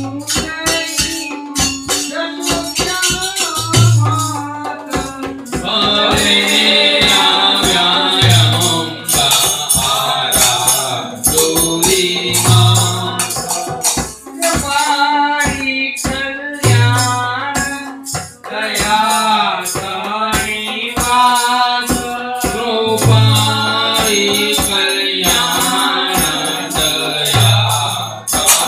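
Group of men singing a Gujarati Garba devotional song to harmonium, dholak drum and small hand cymbals, with a steady jingling rhythm and a deep low beat recurring about every four seconds.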